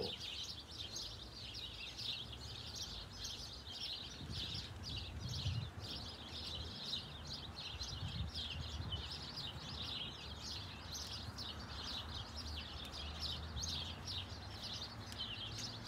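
Small birds chirping continuously, a rapid unbroken stream of short, high chirps, over a faint low background rumble.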